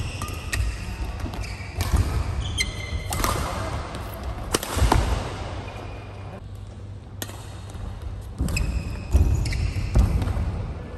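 Badminton rally: sharp racket-on-shuttlecock hits, with court shoes squeaking and footfalls on the court mat between them, and a quieter lull in the middle.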